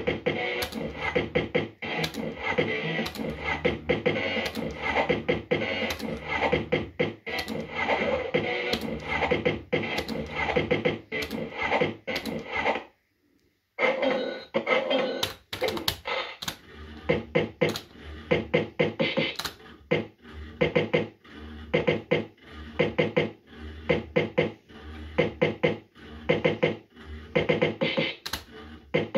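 JPM Red Hot 6 fruit machine playing its electronic music and sound effects as the reels spin and stop, with a steady run of sharp clicks through it. The sound breaks off for under a second about halfway through.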